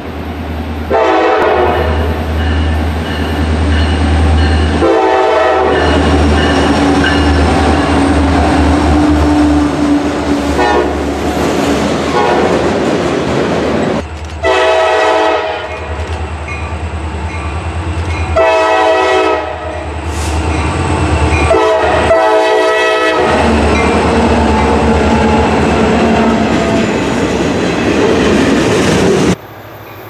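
EMD diesel locomotive approaching with its engine running under heavy rail noise. It sounds a multi-note air horn several times, with two long blasts early on and later a long, long, short, long sequence, the grade-crossing signal.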